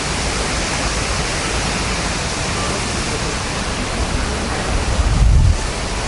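Steady, even hiss of outdoor background noise, with a brief low rumble about five seconds in.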